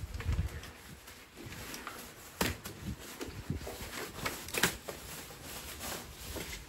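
Light nylon rain cover rustling as it is pulled and tucked over a portable electric cooler, with irregular handling noises and a few sharp clicks, the loudest about two and a half and four and a half seconds in.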